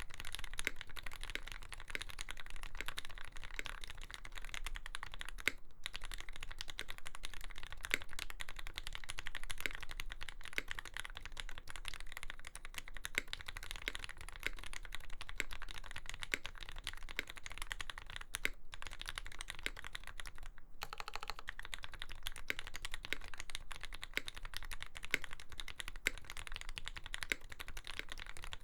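Continuous typing on a custom Lyn Dolphin V3 mechanical keyboard with an aluminium plate, lubed Gateron Fei switches topped with black Cherry housings, and GMK Dolch keycaps. It is a dense run of keystrokes, broken by three brief pauses.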